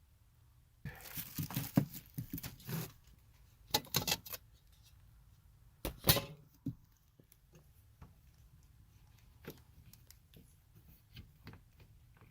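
Handling noise: three bursts of clattering and rustling, a longer one about a second in and shorter ones around four and six seconds, then only faint scattered clicks.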